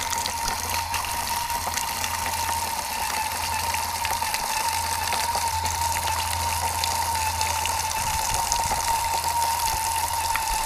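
Water gushing steadily from an outdoor tap into a stainless steel bowl, splashing as a Lakeland terrier bites at the stream. A steady high whine runs under the rush of water.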